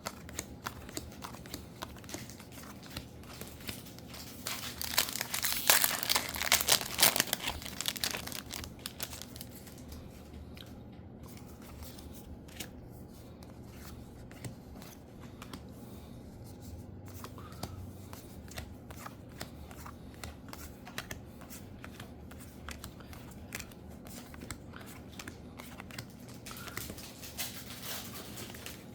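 A foil trading card booster pack being torn open and crinkled, loudest for a few seconds near the start, followed by the light rustle and clicking of the cards being handled and shuffled.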